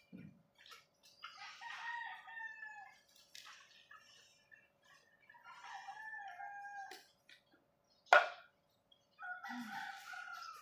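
Roosters crowing three times, each crow about a second and a half long, with one sharp, loud knock about eight seconds in.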